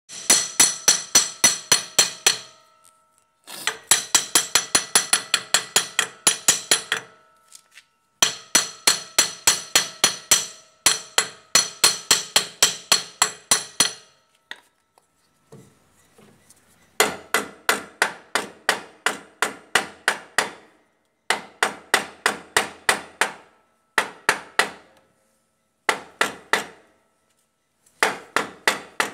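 Rapid knocking blows on the brake drum of a Bajaj three-wheeler, about five a second, in runs of one to three seconds with short pauses between them, the drum ringing faintly after the strikes.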